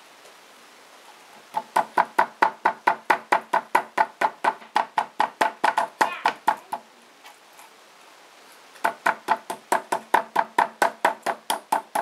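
The back of a kitchen knife blade knocking rapidly on a raw pork chop on a cutting board to tenderize it, about five quick knocks a second. Two runs of knocking, with a pause of about two seconds between them.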